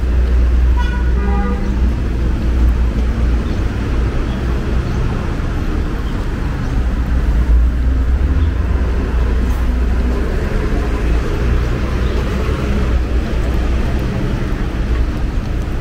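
City street traffic: a steady low rumble of passing cars and other vehicles, with a few brief high-pitched sounds about a second in.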